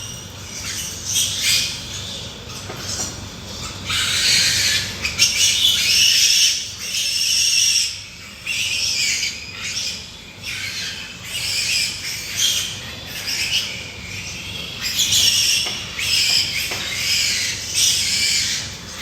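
Pigs squealing, loud high-pitched squeals one after another with short gaps, some lasting a second or more.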